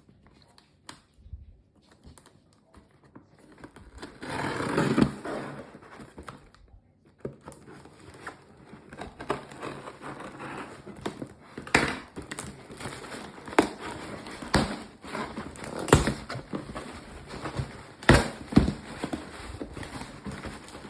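A toy's cardboard box and packaging being opened by hand: rustling and crinkling, with scattered knocks and clicks. Quiet at first, then a burst of heavier rustling a few seconds in, then intermittent handling noise.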